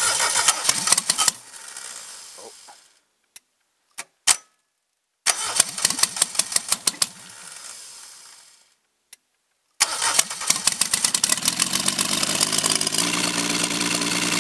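Cold Suzuki G10 1-litre three-cylinder engine, cam cover off, firing and then stalling about a second in, followed by a few sharp clicks. It fires again for a couple of seconds and dies, then catches about ten seconds in and settles into a steady idle. It won't keep running on its own, a stalling the owner puts down to an electrical problem.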